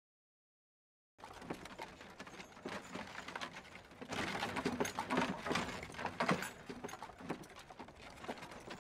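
Silence for about a second, then a horse's hooves clopping irregularly on rocky ground, getting louder about four seconds in.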